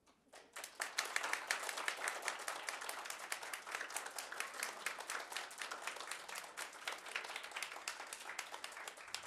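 Audience applauding, a dense clatter of many hands clapping that starts about half a second in, builds within a second and carries on steadily, thinning a little near the end.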